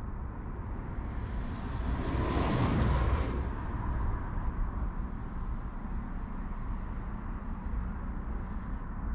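A vehicle passing: a rushing noise that swells and fades, loudest two to three seconds in, over a steady low outdoor rumble.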